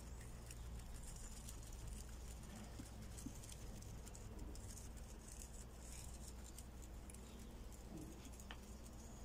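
Guinea pigs chewing fresh green grass: faint, continuous crunching and rustling of grass stems and wood-shavings bedding, over a low steady hum.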